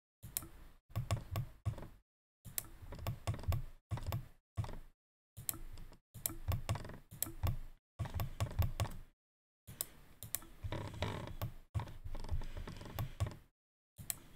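Rapid clicking of a computer mouse and keyboard on a desk, in short runs of many clicks with dull knocks among them, broken by brief gaps of silence.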